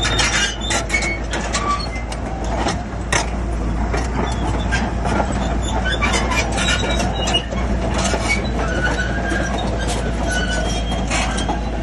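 Shantui crawler bulldozer working: a steady diesel engine hum under frequent metallic clanks and short high squeals from its steel tracks.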